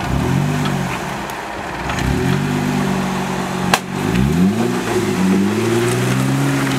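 Jeep Wrangler JK's engine revving in repeated rising surges as it crawls up over rocks under load, with a single sharp bang a little past halfway.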